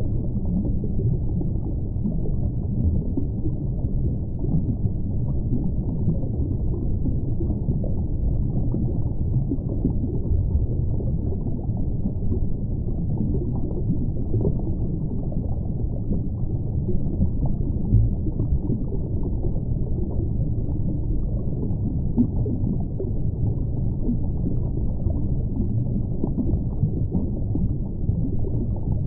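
Steady, muffled low rumble of moving water, like an underwater ambience, with no distinct events.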